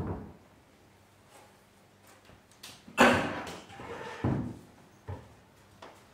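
Irregular sudden knocks and thuds, each dying away within about half a second. The loudest comes about three seconds in, followed by further hits a second and two seconds later.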